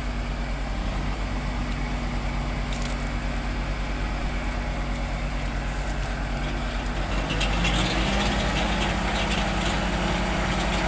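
Large diesel engine, likely the ploughing tractor's, idling steadily, then revving up about seven seconds in as it gets ready to move off again once the broken plough blades are replaced.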